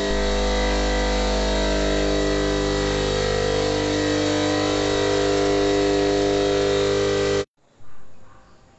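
Paint spray gun running steadily while spraying black paint onto sign letters, a loud hiss mixed with a steady mechanical buzz. It cuts off suddenly near the end, leaving only faint room sound.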